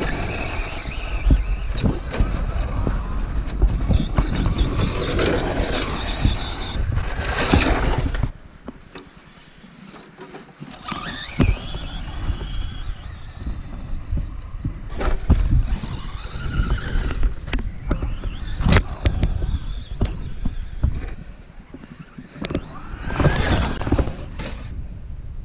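Team Associated Pro2 SC10 electric RC short-course truck driving hard over dirt and sand, its motor whining up and down with the throttle. A loud rushing noise fills the first eight seconds, then drops abruptly, and the rest is quieter, with several rising and falling whines.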